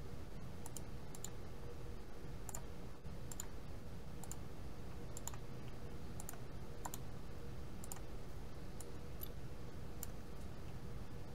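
Computer mouse clicking: about ten sharp single clicks at irregular intervals, the right- and left-clicks of selecting objects and choosing delete from a menu. A steady low hum runs underneath.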